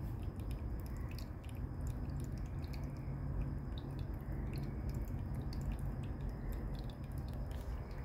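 Summer night neighbourhood ambience: a steady low rumble with a faint, steady high insect trill and scattered small clicks.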